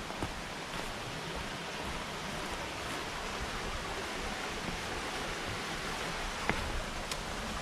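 Steady rush of running water from a mountain stream, with a couple of faint knocks near the end.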